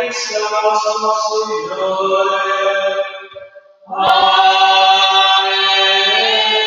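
A hymn sung in long, held notes. The singing fades about three and a half seconds in and comes back loud just after four seconds, with a single sharp click as it returns.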